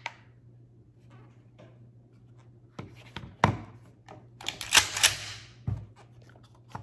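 Sharp metallic clicks and clacks as an empty Mossberg 590 Shockwave 12-gauge pump shotgun and a trigger pull gauge are handled on a table. The loudest is a quick clatter of several clacks about four and a half seconds in, followed by a duller thump.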